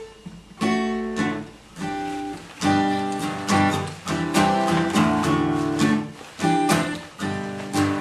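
Acoustic guitar strumming chords in a steady rhythm, playing a song's intro.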